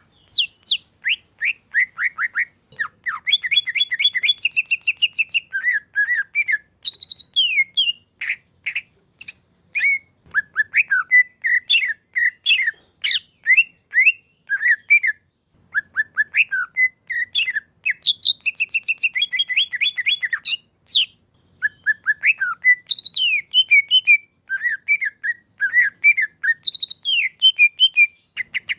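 Green leafbird (cucak ijo) singing a long, varied song of quick chirps, slurred whistled notes and rapid trills, in phrases separated by short pauses.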